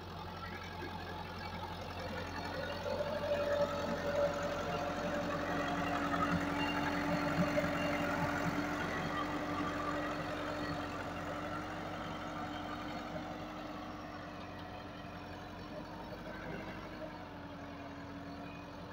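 Massey Ferguson 385 tractor's four-cylinder diesel engine running steadily as it pulls a laser land-leveller blade through loose soil. It grows louder for several seconds as the rig passes close, then slowly fades.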